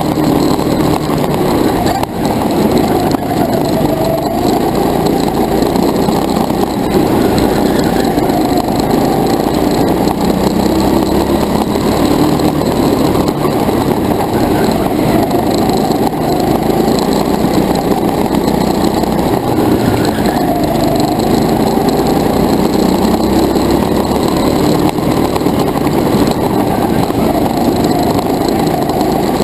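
Go-kart's small engine running hard, heard from on board the kart, its pitch rising and falling over and over as the driver lifts and accelerates through the corners.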